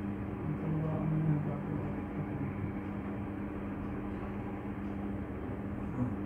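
A steady machine-like hum: a constant low drone under an even hiss, with a faint short murmur about a second in.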